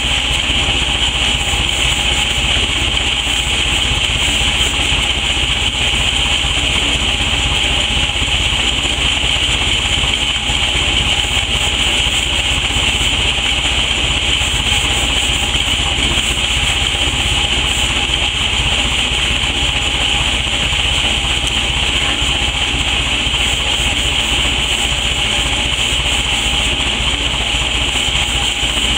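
An engine running steadily at an even speed, with no change in pitch or level.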